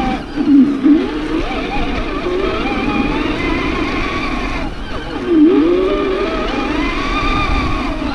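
Whine of an RC4WD Desert Runner 1/10 scale RC truck's electric motor and gears, rising and falling in pitch with the throttle. The pitch dips sharply and climbs again twice, about a second in and past the middle.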